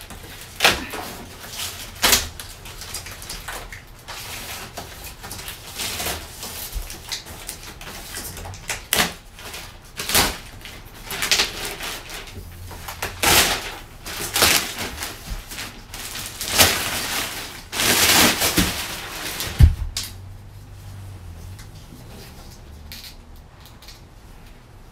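Unpacking a whiteboard: the cardboard box and its packaging rustle and scrape in short bursts, with scattered knocks of the board against the box. The handling noise stops about 20 seconds in.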